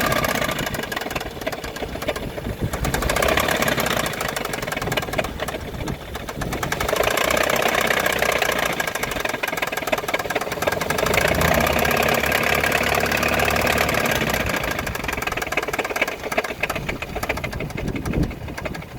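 Car engine running with a rapid knocking from the left side of the engine, revved up twice and let back down. The knock is the fault being diagnosed.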